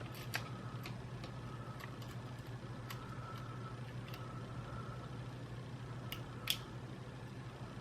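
Scattered small clicks and taps of a PS4 controller's plastic parts being handled while its touchpad ribbon cable is fitted, over a steady low hum. The loudest click comes about six and a half seconds in.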